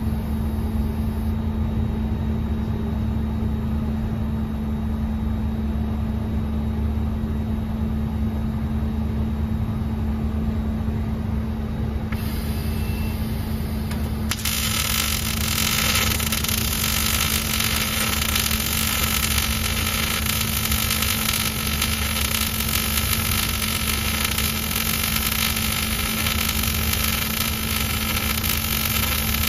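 A steady machine hum from the robotic welding station, then about halfway a welding arc strikes suddenly and a continuous crackling hiss of the wire-fed arc welding runs on as the robot torch lays a weld along a steel joint.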